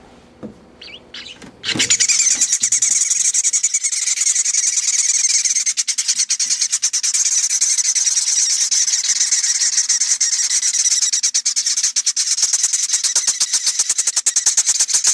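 Baby chimney swift nestlings begging for food in a loud, high-pitched, rapidly pulsing chittering chorus that starts abruptly about two seconds in.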